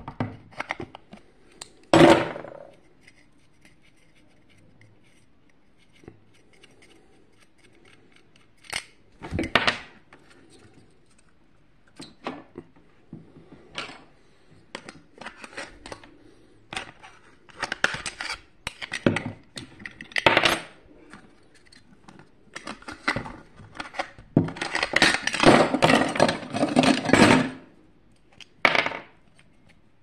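Metal hand tools (adjustable wrench, screwdriver, pliers) clinking, knocking and scraping against the metal parts of a vacuum cleaner motor as it is taken apart. Scattered clicks are heard, with a loud clack about two seconds in and a longer stretch of rattling and scraping near the end.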